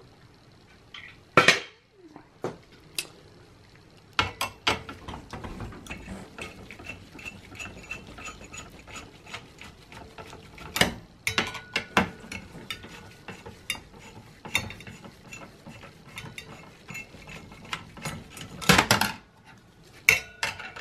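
A long Phillips screwdriver working at screws inside a Dell Precision T5500 workstation's metal case, giving a run of small metallic clicks and scrapes. There are a few louder knocks, about a second and a half in, near the middle and near the end.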